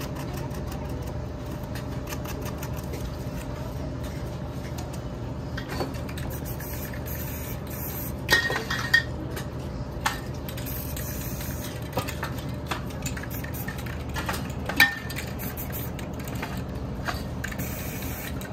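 Aerosol spray-paint cans clinking and knocking as they are taken from and set back into the metal can racks, with short hisses of spray paint, over a steady low hum. The sharpest knocks come a little past the middle, the loudest about three-quarters of the way through.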